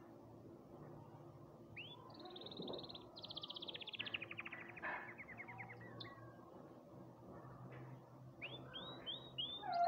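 Domestic canary singing. A rapid trill starts high about two seconds in and slides down in pitch over a few seconds. After a short pause, a run of quick rising notes comes near the end.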